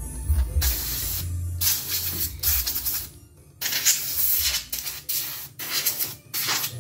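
Compressed-air blow gun firing about eight short hissing blasts, each under a second with a longer pause about halfway, blowing dust off the embroidery machine's plastic cover. Background music plays underneath.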